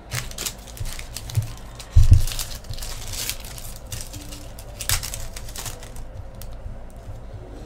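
Foil trading-card pack wrappers crinkling and tearing as packs are opened and the cards handled, in several rustling spells, with one loud low thump about two seconds in.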